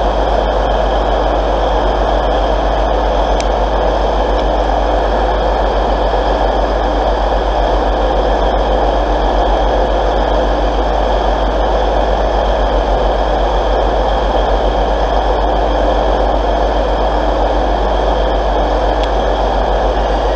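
Steady drone of diesel train engines idling, echoing under the station's train shed.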